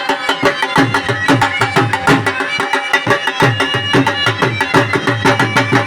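Dhol baja music: fast, steady dhol drumming with deep bass strokes that drop slightly in pitch, under a held melodic line.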